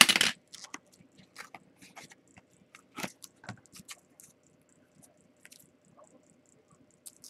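A trading-card mailer being torn open and handled: a short, loud rip at the start, then scattered crinkles and clicks of plastic and paper as the card in its plastic holder is pulled out.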